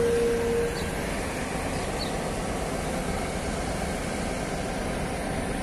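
Steady low rumble of heavy machinery on a construction site during a crane lift. A steady high tone fades out within the first second.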